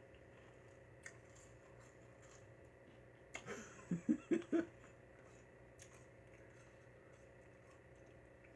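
Mostly quiet room tone with a few faint clicks. A little over three seconds in comes a brief chuckle: four quick breathy pulses of voice.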